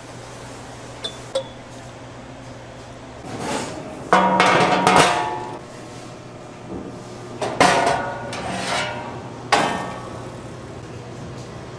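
Metal bowls and utensils clattering and clanking, with ringing tones: two light clinks, then three louder bursts of clatter about four, seven and a half, and nine and a half seconds in.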